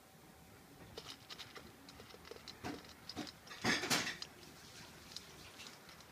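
Cat crunching dry kibble from a stainless steel bowl: quick, irregular small clicks of chewing and of kibble knocking in the metal bowl. A louder, noisy half-second burst comes a little before four seconds in.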